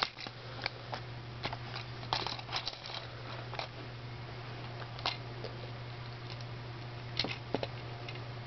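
Irregular small plastic clicks and taps from handling a Transformers Prime Robots in Disguise Deluxe Class Ratchet action figure, with its parts and sword being adjusted. The clicks come most often in the first few seconds and again near the end, over a steady low hum.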